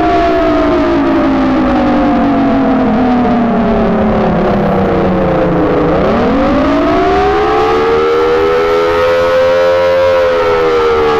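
Outdoor warning siren sounding a wail, loud and steady in volume. Its pitch slides slowly down for about six seconds, climbs back up over about four, and starts to fall again near the end.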